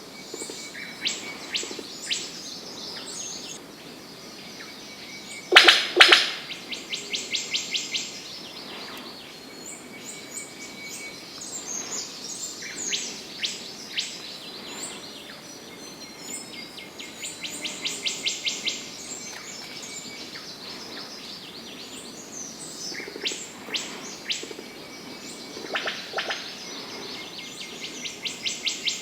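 Forest birds calling: several rapid trains of high, evenly repeated notes, with a loud sharp call about six seconds in.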